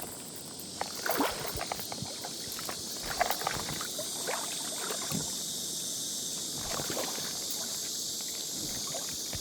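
Stream water splashing and swishing irregularly, as of legs wading through a shallow stream, over a steady high hiss.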